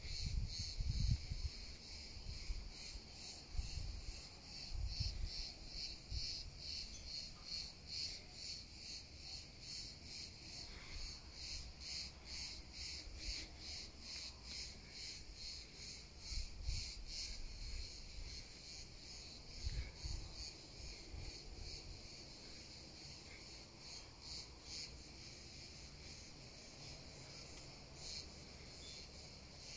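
Insects shrilling steadily at a high pitch, pulsing about three times a second, with a few low thumps near the start and around the middle.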